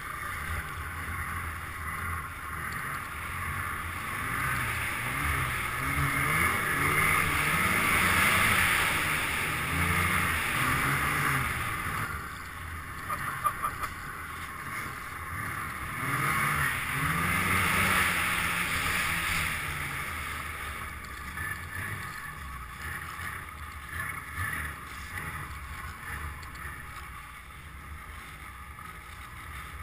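Snowmobile engine running under way, revving up and down so that its pitch rises and falls again and again, over a steady rush of wind and track noise. It is loudest about a quarter of the way in and again a little past halfway, with a few sharp knocks near the middle.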